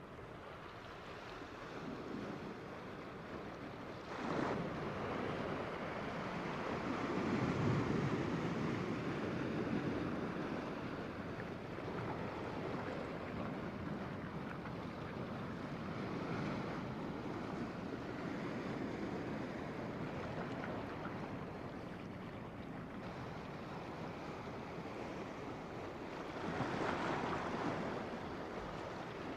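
Sea waves surging and washing over the rocks at the shoreline, swelling louder about four seconds in, again around eight seconds, and near the end.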